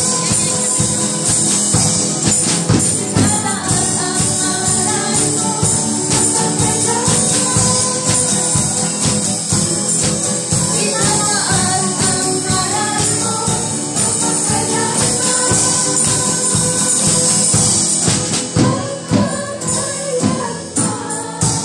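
A live worship band playing a song together: drum kit, strummed acoustic guitar and keyboard, with voices singing over them.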